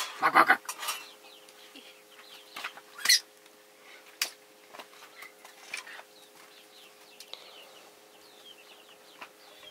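A short, loud animal call right at the start, then a couple of sharp knocks a few seconds in and faint, high bird chirps.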